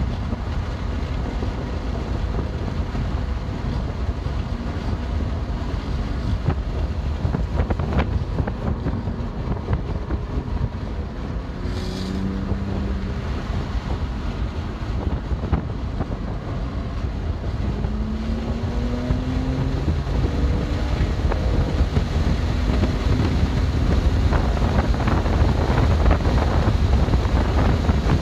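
2020 BMW M2 Competition's twin-turbo inline-six under hard track driving, buried in heavy road and wind noise. The engine note rises in pitch under acceleration now and then, and the whole sound grows louder in the last few seconds.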